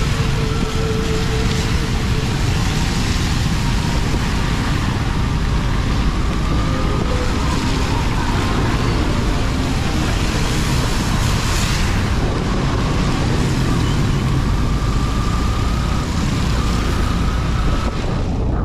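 Steady motorcycle riding noise in traffic: engine, road and wind noise, with other vehicles passing around.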